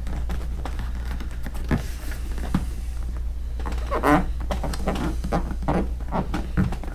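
Hands pressing and rubbing a glued vinyl D-ring patch onto an inflatable paddle board: many light, irregular taps and rubs, busiest about four seconds in, over a steady low hum.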